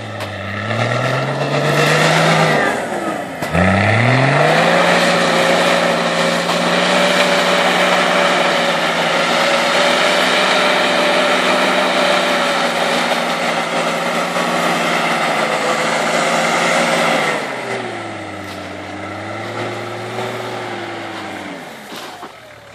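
An off-road 4x4's engine revving hard. The revs climb, drop sharply about three seconds in, then rise again and are held high and steady for about thirteen seconds. They then fall back to a lower, wavering speed and fade near the end.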